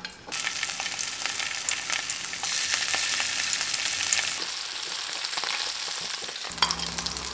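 Marinated oil sardines (mathi) frying in hot oil in a nonstick pan: a hissing sizzle with crackles that starts abruptly as the fish goes in and gets louder about two and a half seconds in as more fish are added.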